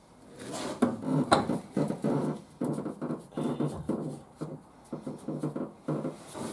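A new spin-on diesel fuel filter canister being turned by a gloved hand onto its filter head: a run of irregular rubbing, scraping and light knocks.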